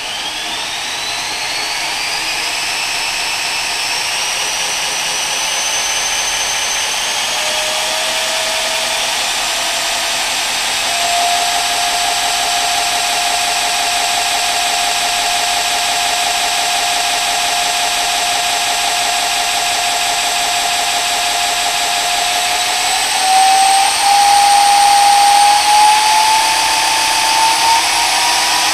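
Shop-built 2x72 belt grinder with a 1.5 hp three-phase motor on a VFD, running and being sped up: a steady motor and belt whine climbs in pitch over the first several seconds, holds, and then steps up again near the end.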